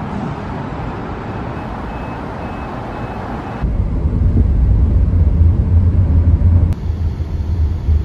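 Steady outdoor traffic noise. Then, after a sudden cut a little over three seconds in, a louder low rumble of road noise heard inside a car driving on a highway.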